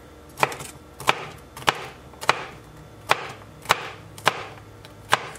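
An 8-inch stainless steel chef's knife chopping green bell pepper strips on a plastic cutting board: eight even knocks of the blade on the board, about one every 0.6 seconds.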